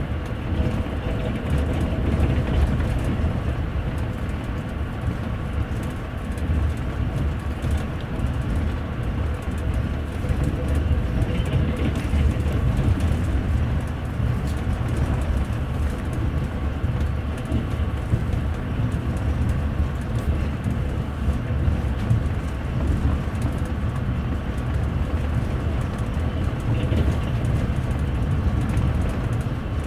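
Passenger train running at speed, heard from inside the upper deck of a double-deck carriage: a steady low rumble of the wheels on the rails, with faint steady tones and an occasional light click over it.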